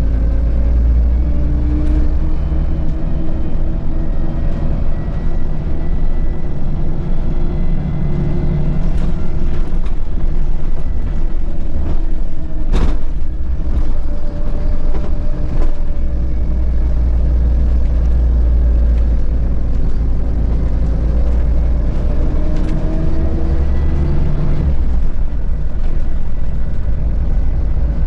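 Volvo B7RLE bus's inline-six diesel engine and drivetrain heard inside the moving bus, a steady low rumble whose pitch rises and falls a few times as the bus speeds up and slows. A single sharp knock sounds about halfway through.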